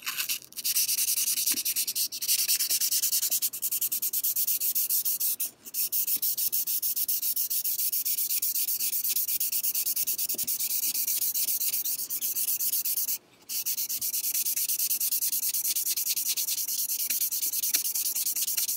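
Folded 400-grit sandpaper rubbed by hand back and forth along the steel blade of a Swedish frameback straight razor: a steady hissing scratch in quick, even strokes, pausing briefly twice. The sanding is taking the grunge off the blade.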